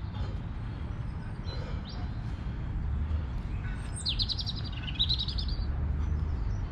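A songbird singing a rapid trill of short falling notes, two phrases in quick succession, about four seconds in, with a fainter high note a couple of seconds earlier. Under it runs a steady low rumble.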